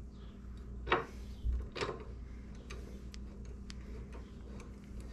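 Light, irregular metallic clicking and ticking of a hand tool with a 5/16 Allen socket as bolts are spun in by hand, with two sharper clicks about one and two seconds in.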